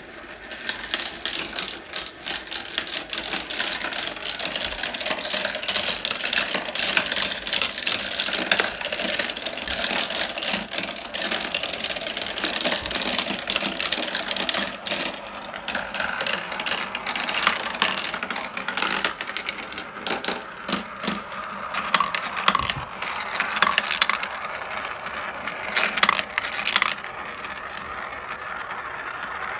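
Many marbles rolling and clattering through a Marble Genius plastic marble run: rattling down the clear tubes and whirling around the plastic funnel bowls, with a dense stream of clicks as they knock against each other and the track. It starts about half a second in and keeps going steadily.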